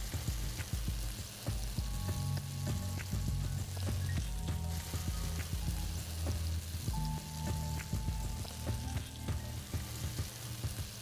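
Kingfish steaks and curry leaves shallow-frying in hot oil in a non-stick pan, sizzling with a constant patter of small crackles and spits.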